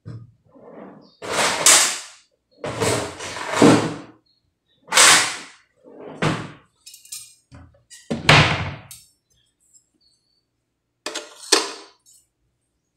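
A cloth dish towel rubbing and wiping kitchenware dry, heard as a series of short, loud rubbing swishes and knocks with brief pauses between them.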